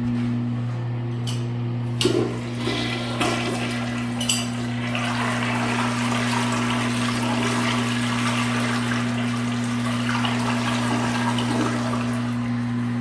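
Kohler Portrait Ingenium toilet flushing: a sharp click of the flush mechanism about two seconds in, then a steady rush of water through the bowl. A steady low hum runs throughout.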